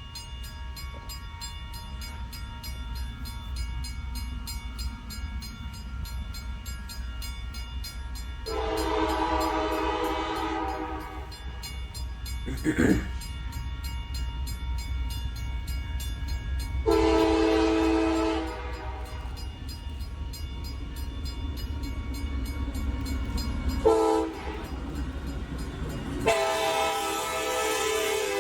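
Four-chime Nathan K4 air horn on a CN SD70M-2 diesel locomotive sounding the grade-crossing signal: long, long, short, long. The locomotive's steady low engine rumble and a ringing bell run underneath.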